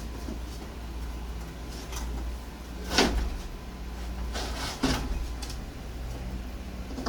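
A wooden board being handled and knocked about: a sharp knock about three seconds in, then a scrape ending in a second knock a couple of seconds later, over a steady low hum.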